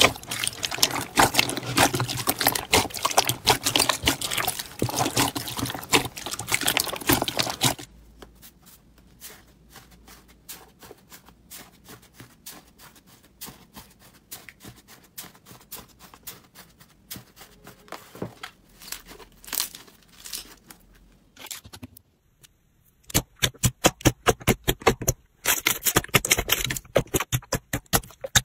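Hands squishing and kneading slime: dense wet crackling from slime mixed with foam beads for about eight seconds, then much quieter soft crackling as fingers press into foamy slime. After a brief pause near the end comes a quick series of loud wet pops and squelches from squeezed clear slime.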